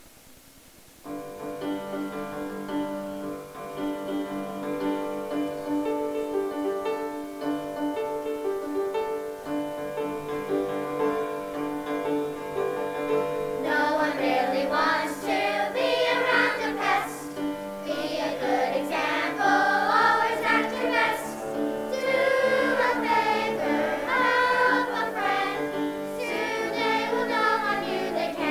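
Instrumental accompaniment begins about a second in with a held-note introduction, and a children's choir joins in singing about halfway through, with the accompaniment continuing beneath.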